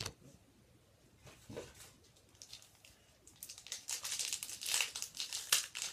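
Wrapper of a Score hockey card pack crinkling and tearing as it is ripped open, starting a little past halfway after a quiet stretch.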